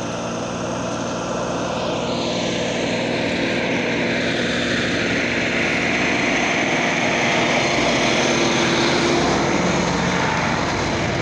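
Diesel tractor engine running as a tractor pulling a trolley comes up and passes close by, getting louder from about two seconds in and staying loud to the end.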